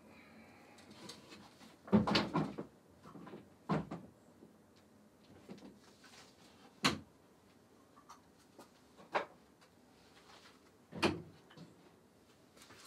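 Someone rummaging off to the side for a small cup: a clatter of knocks about two seconds in, then single sharp knocks every couple of seconds, like a cupboard or drawer and small items being handled and set down.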